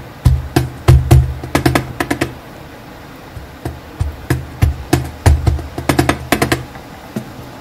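Background music carried by sharp wood-block-like knocks and low drum hits in irregular clusters, with a lull in the middle.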